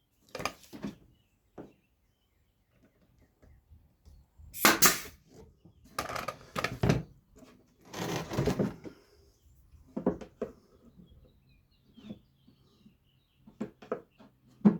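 Small wooden pieces handled on a workbench: a series of short scrapes and clattering knocks, the longest and loudest about five and eight seconds in, with light clicks near the end.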